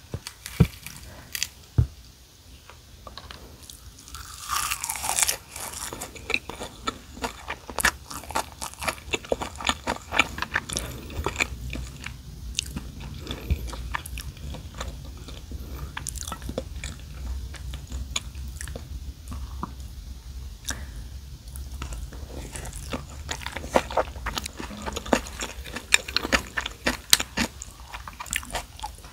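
Close-miked chewing of kimchi fried rice wrapped in seasoned laver (gim): a steady run of wet mouth clicks and small crunches of the crisp seaweed, with a louder crunchy stretch about four seconds in.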